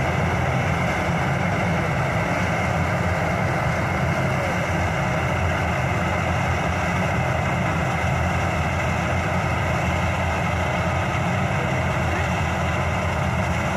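Dasmesh combine harvester's diesel engine and threshing machinery running steadily under load while it cuts a rice crop.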